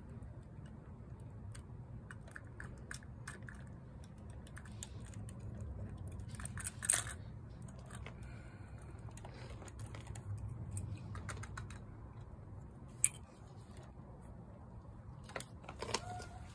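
Small hard clicks and taps of a die-cast toy garbage truck and its plastic toy trash containers being handled, the front-loader forks and cans knocking together. A louder clack about seven seconds in and a sharp click about thirteen seconds in, over a low steady rumble.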